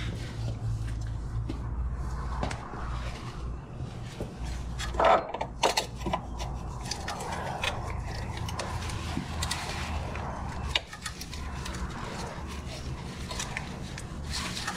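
Scattered metal clinks and a few sharper knocks from hand tools working on engine mounts, with a cluster of knocks about five to six seconds in, over a steady low hum.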